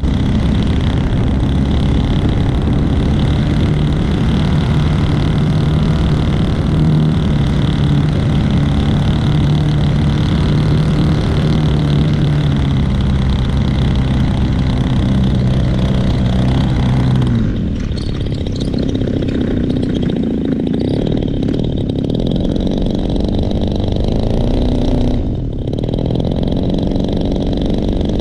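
Senior Telemaster RC airplane's hand-started engine running steadily in flight with a constant pitched drone. About two-thirds of the way through the sound changes to a quieter, different engine tone, with a brief drop a few seconds before the end.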